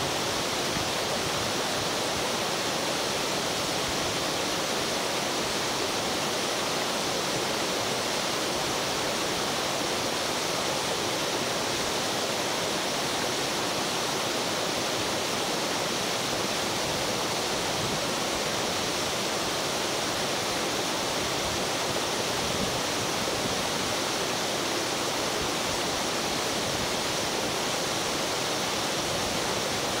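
Kaen Falls waterfall rushing steadily: an even hiss of falling water that holds the same level throughout.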